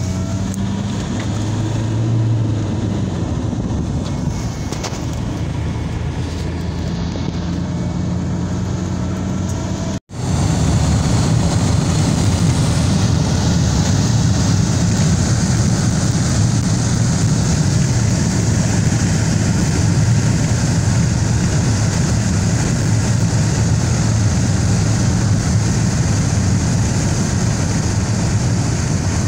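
A car driving at road speed, heard from inside the cabin: steady engine hum with tyre and wind noise. About ten seconds in the sound drops out for an instant, then carries on louder with more wind hiss.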